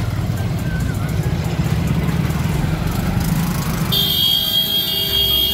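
Motorcycle engine running at low speed in slow, stop-and-go traffic. About four seconds in, a steady, high, buzzer-like electronic tone starts and holds.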